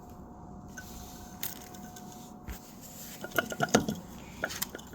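A faint steady whine for about three seconds, then a run of light metallic clicks and taps as the opened e-bike hub motor's parts are handled.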